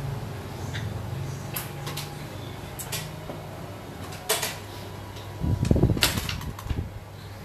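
Steady low hum under a few scattered sharp clicks. A dull bump with clicks, the loudest sound, comes about six seconds in.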